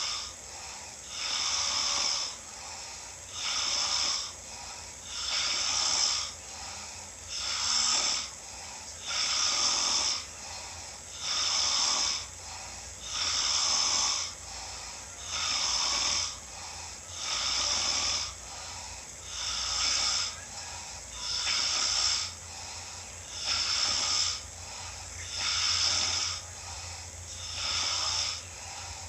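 A sleeping person snoring in a steady rhythm, one snore about every two seconds.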